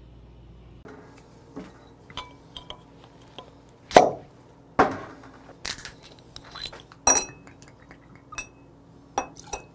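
Glass soju bottle and drinking glasses being handled on a table: a string of separate clinks and knocks, the loudest about four seconds in, a few of them ringing briefly like glass.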